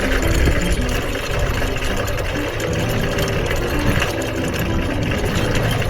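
Electric anchor windlass running steadily, paying out the anchor chain, with the boat's engines idling in neutral underneath.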